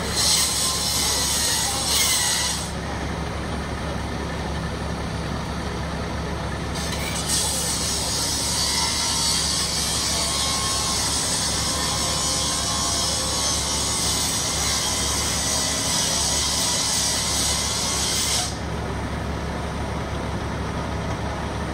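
Low steady drone of an idling fire engine, with a high hiss laid over it twice: for about three seconds at the start, then again from about seven seconds in for about twelve seconds, stopping suddenly each time.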